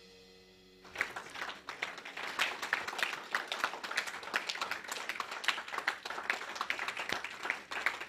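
The song's last held chord fades out, then applause breaks out about a second in: many hands clapping in quick, irregular claps.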